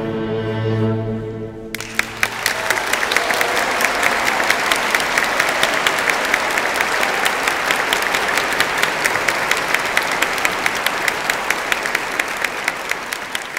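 A string quartet of violin, viola and two cellos holds its final chord, with a strong low cello note, for under two seconds. Then the audience breaks into applause, steady and loud, thinning out near the end.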